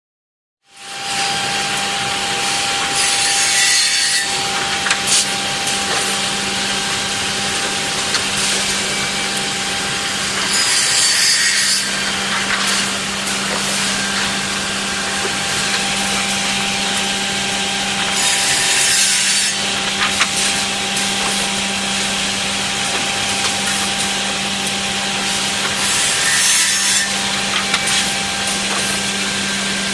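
Automatic double-end wood drilling and cutting machine running, its motors humming steadily, with a louder cutting pass through the wood about every eight seconds, four times, and a few sharp clicks.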